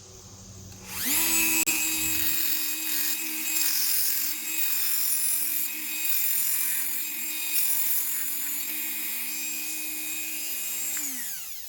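A small high-speed power tool spins up about a second in, runs with a steady high whine while cutting through G10 band clips, and spins down near the end.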